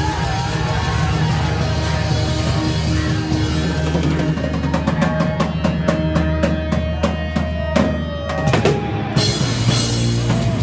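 Rock band playing live: distorted electric guitar and bass with a drum kit. From about four seconds in the drums hammer out a run of sharp hits, and a held guitar note bends downward just before the hits stop, near the end of the song.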